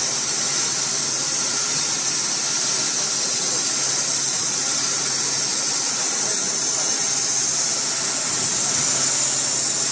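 Dack SMA 1000 T semi-automatic sawmill running on its 11 kW electric main motor: a steady, high-pitched hiss and whine with no breaks.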